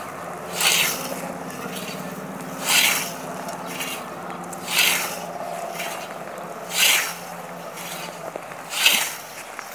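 Hand scythe blade cutting through tall grass: a swishing stroke about every two seconds, five in all.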